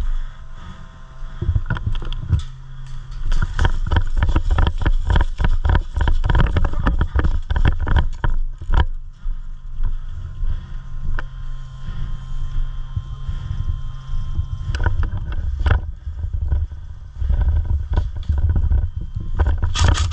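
Quick, steady thuds of running footsteps, thickest in the first half, over a heavy low rumble of wind and movement on the microphone.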